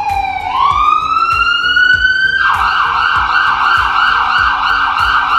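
Ambulance siren: a slow wail that falls and then rises, switching about two and a half seconds in to a fast yelp that warbles up and down several times a second.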